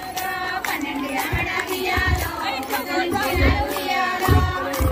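Women singing a Telugu Bathukamma folk song together, with regular hand claps keeping the beat about two to three times a second. A few low thuds sound under the singing.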